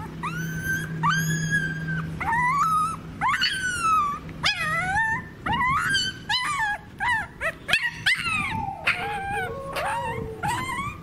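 Puppy whining and crying in a string of high-pitched yelps that rise and fall in pitch, coming faster in the second half, while mangoworm larvae are being taken out of its skin.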